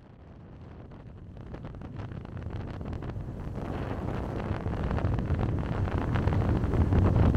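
Steady low rumbling noise fading in from silence and growing steadily louder.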